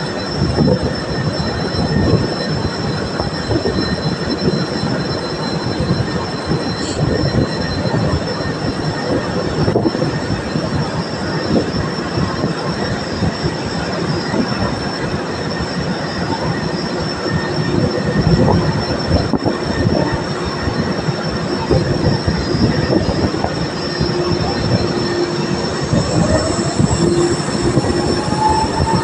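Drilling rig machinery running with loud, steady noise and a constant high-pitched whine. A lower whine rises in pitch near the end.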